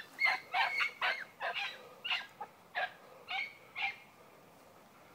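Hunting dog giving tongue on a rabbit's scent: a quick run of high yelping barks, about two a second, that stops about four seconds in.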